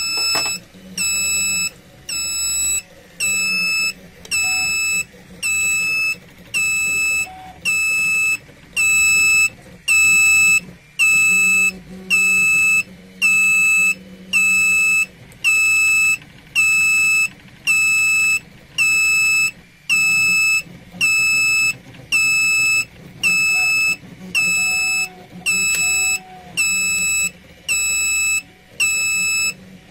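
Electronic buzzer on a 3D printer thermal-runaway tester beeping steadily, one high-pitched beep about every 0.8 seconds. It is the over-temperature alarm, still sounding while thermal sensor TS-3 reads HIGH.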